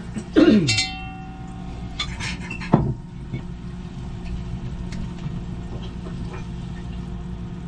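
Kitchen clatter: a ceramic mixing bowl and spoon knocking and ringing against a pot in the first second, another sharp knock about three seconds in, then faint clicks, all over a steady low hum.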